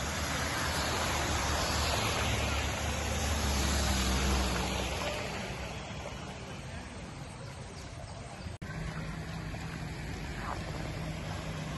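An SUV driving through shallow floodwater on a road, its tyres sending up a rushing splash over the engine's low rumble. The sound swells to a peak about four seconds in as the vehicle passes, then fades. After a sudden break, a steadier wash of water noise with a low hum follows.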